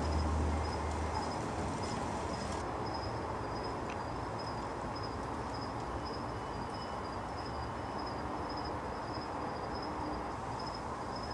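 Steady background noise with a faint high chirp repeating about twice a second. A low rumble fades out about a second in.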